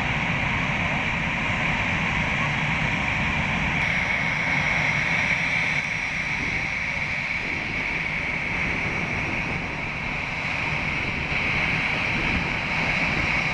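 Jet airliner engines running steadily: a continuous rushing roar with a strong hiss high up and a low rumble beneath, easing slightly about ten seconds in.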